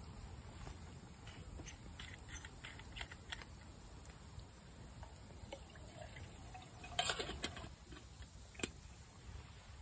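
Liquid poured from a flask into a metal camping mug, among small clicks and knocks of handling, with a louder clatter about seven seconds in and a sharp click soon after.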